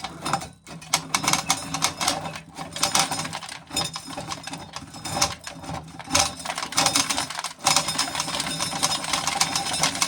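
Corn sheller stripping kernels from ears of corn: a continuous, rapid mechanical clatter of kernels rattling off the cob, with a steady low hum underneath and a brief break about three-quarters of the way through.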